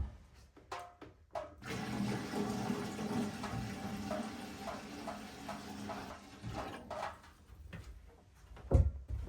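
Liquid pouring steadily for about five seconds, with dull knocks just before and again near the end.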